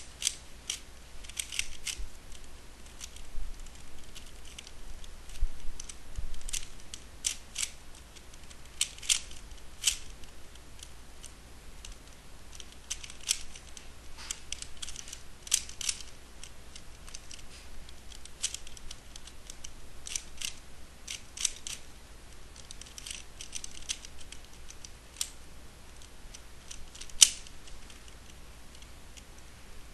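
Plastic clicking of a GuHong speedcube's layers being turned one-handed, in irregular runs of quick clicks with short pauses between them. One sharper, louder snap comes near the end.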